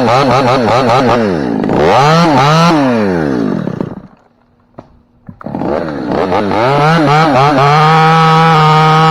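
Two-stroke chainsaw revving up and down several times. Its sound cuts out about four seconds in, comes back about a second and a half later, and climbs to a steady high speed, running flat out for the last second or so.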